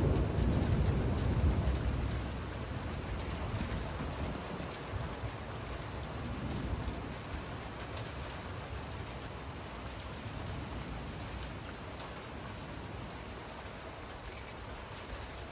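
Steady rain falling through a thunderstorm. A low rumble of thunder at the start dies away over the first two seconds or so.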